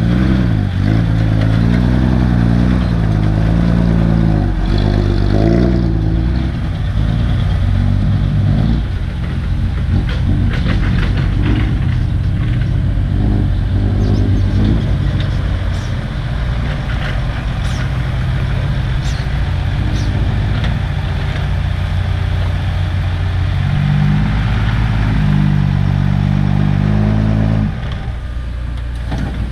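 Diesel engine of a six-wheel dump truck, revving up and down repeatedly as the truck works through loose soil at an excavator, with clattering in the middle. It revs again shortly before the end, then settles to a lower, steadier run.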